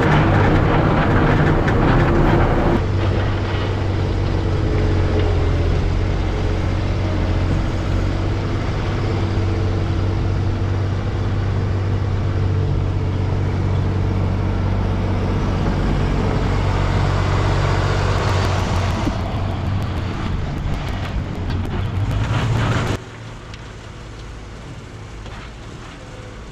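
Diesel engine of a 2007 New Holland 78-horsepower skid steer running steadily under way, its sound cutting off abruptly near the end.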